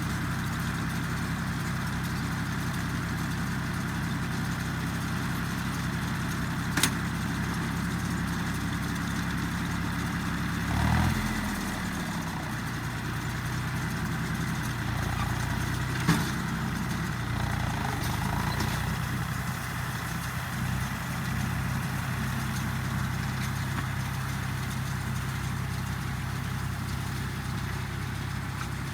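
An engine running steadily at a low, even pitch. About eleven seconds in, its pitch briefly dips and recovers, and two sharp clicks stand out, one a few seconds before the dip and one a few seconds after it.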